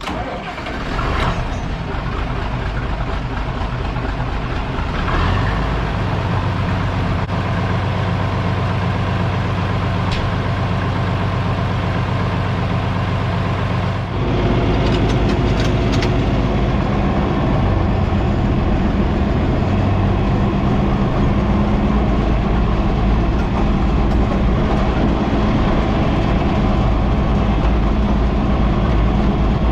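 Engine running steadily at idle, a low droning hum that steps up in level and changes pitch about fourteen seconds in.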